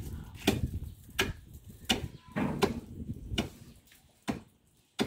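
Sharp knocks repeating at a steady pace, about one every three-quarters of a second, over a low rumble that fades out about four seconds in.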